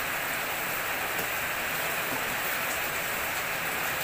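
Pot of chicken soto broth boiling on the stove: a steady bubbling hiss, with a few faint clinks from the metal ladle stirring in the pot.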